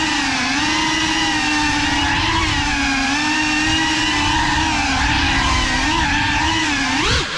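Motors and propellers of a GEPRC Cinelog35 ducted cinewhoop FPV drone in flight, a steady buzzing whine whose pitch drifts up and down with the throttle. Near the end the sound dips briefly and the pitch swings quickly up and back down.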